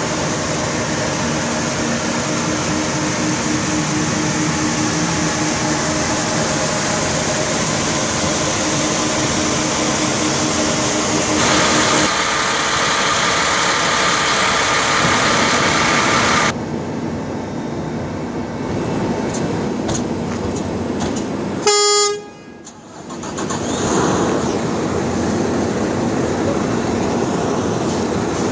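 A heavy truck runs steadily with a low hum, then a conventional Kenworth diesel truck idles. About 22 seconds in, a short truck-horn toot, the loudest sound, is followed by truck running noise building up again.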